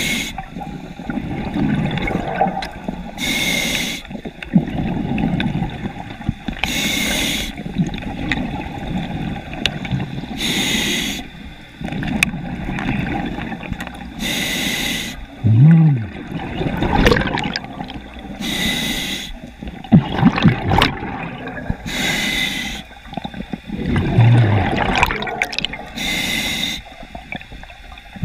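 Scuba diver breathing through a regulator underwater: a short hiss of inhalation about every three and a half to four seconds, with gurgling exhaust bubbles between. Two short low honk-like tones sound in the second half.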